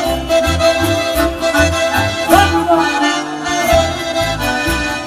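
Argentine folk dance music led by an accordion, with a steady bass beat underneath.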